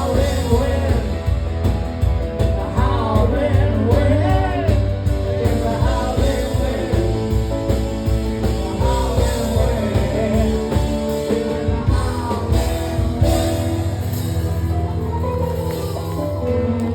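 Rock band playing an instrumental passage of the song, with a steady drum beat, bass and bending lead notes; about thirteen seconds in the beat stops and a chord is left ringing.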